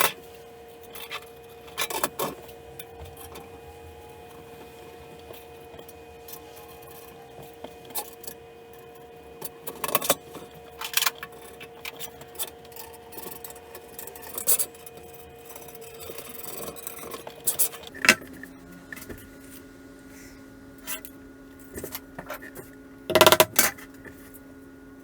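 Scattered light metallic clinks and knocks over a steady hum. The hum drops to a lower pitch about two-thirds of the way through.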